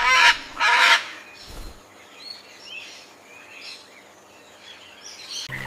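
Parrot squawking: two loud harsh calls in the first second, then fainter chirps and squawks.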